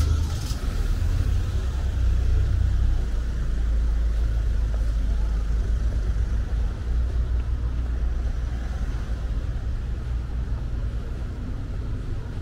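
A steady low rumble of city background noise with a faint hiss above it.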